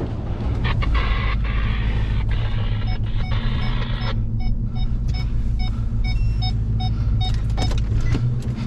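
Pickup truck engine idling with a steady low hum. For several seconds in the middle, an electronic chime beeps about three times a second, then stops near the end.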